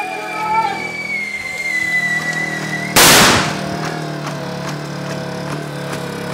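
Simulated incoming mortar round: a thin whistle falling slowly in pitch for about three seconds, then a sudden loud blast about three seconds in. A steady engine drone runs underneath.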